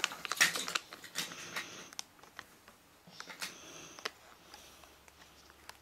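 Scattered light clicks and scrapes of hands handling a plastic Hot Wheels track launcher while rubber bands are stretched onto it.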